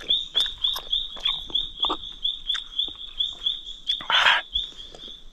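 A man chewing wild honeycomb, with wet mouth clicks, over an animal's high chirp repeated evenly about three times a second. A short breathy exhale about four seconds in.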